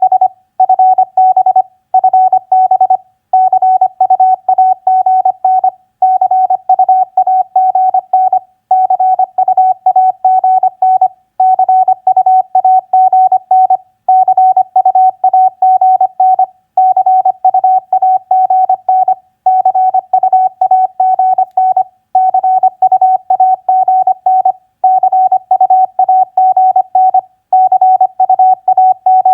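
Morse code as a single steady tone keyed on and off at 25 words per minute, in quick dots and dashes grouped into short words with brief pauses between them: practice sending of common contact abbreviations such as TU, FB and CU AGN.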